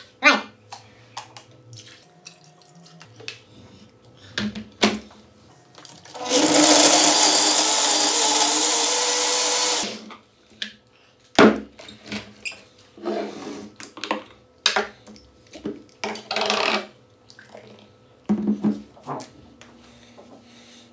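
Kenwood Chef XL kitchen machine's blender attachment running for about three and a half seconds, blending watermelon chunks and soda, then switching off abruptly. Knocks and clatter of the glass jar and cups before and after, and liquid being poured into a glass afterwards.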